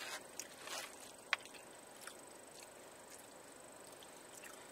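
Quiet eating sounds: a few light clicks and taps of plastic forks in foam takeout containers in the first second and a half, the sharpest about a second in, then only faint hiss.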